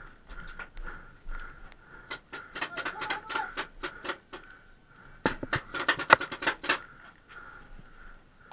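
Paintball fire: quick runs of sharp cracks, a scattered cluster a couple of seconds in and a denser rapid burst past the middle, with a faint steady high tone underneath.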